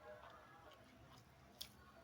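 Faint close-up chewing of a mouthful of beef biryani, with one sharp click about one and a half seconds in.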